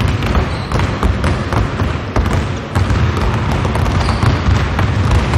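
Many basketballs bouncing on a hardwood gym floor in a dense, irregular patter of overlapping thuds, several players each dribbling two balls at once.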